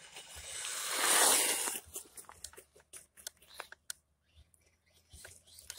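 Small electric RC truck passing close by at speed on asphalt: a whooshing swell of motor and tyre noise that builds, peaks about a second in and fades. It is followed by a few seconds of scattered crackling clicks.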